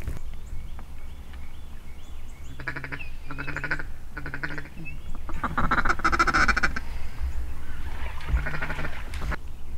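Duck call blown by a hunter: three short quacks, then a longer and louder run of quacks about halfway through, and another short series near the end.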